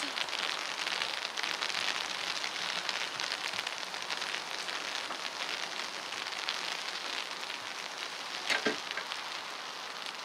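Steady rain pattering down outside an open doorway. About eight and a half seconds in comes a single short thud as the wooden front door is shut.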